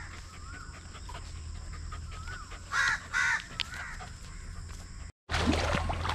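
Harsh bird calls, two loud ones about three seconds in among softer wavering calls. The sound drops out briefly about five seconds in, then gives way to rustling and splashy steps through wet grass.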